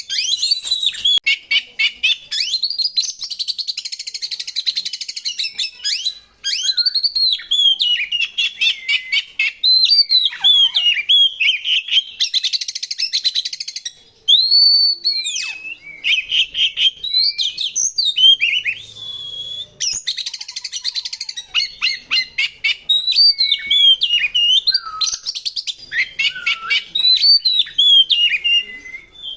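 Male oriental magpie-robin (kacer) singing loudly and continuously. Varied whistled notes that rise and fall alternate with harsh, scratchy rattling passages, the rough song material kept for lure and contest birds. The song breaks off briefly twice.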